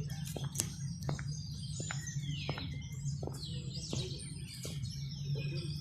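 Many small birds chirping and twittering in quick, overlapping calls, over a steady low hum.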